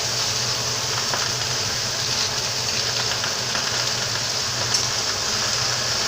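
Steaks and onion frying in canola oil in a pan: a steady sizzling hiss with a few small pops, over a steady low hum.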